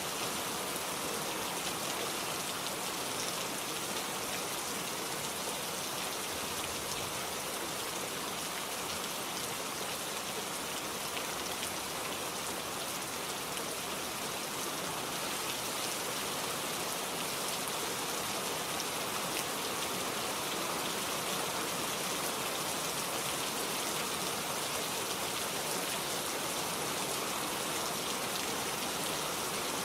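Steady rain falling in a forest, a dense even patter of raindrops on leaves and ground.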